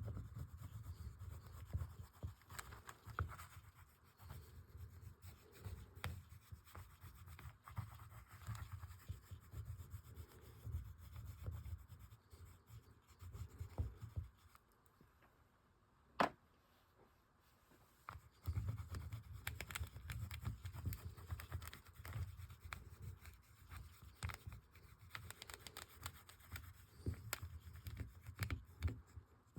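Oil pastels scratching and rubbing across paper in irregular runs of strokes. The strokes stop for a few seconds midway, with a single sharp tap in the pause, then start again.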